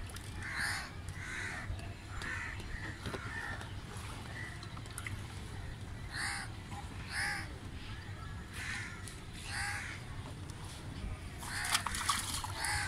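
Crows cawing over and over, short harsh calls coming about a second apart. Near the end, a splash of water as a fish is hauled up in a landing net.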